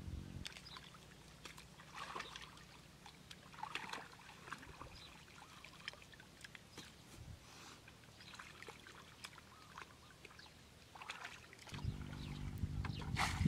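Muddy water splashing and pouring as a plastic bucket is scooped through a shallow ditch and emptied, bailing it out; short scattered splashes. A low steady hum comes in near the end.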